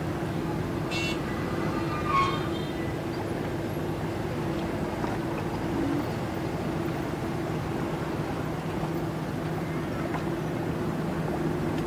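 Steady low drone of a ship's engine, with two brief high chirps about one and two seconds in.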